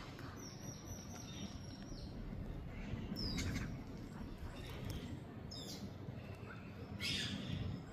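Parakeet calling: a few short, harsh calls spaced a second or more apart, after a thin, steady high note held for over a second near the start.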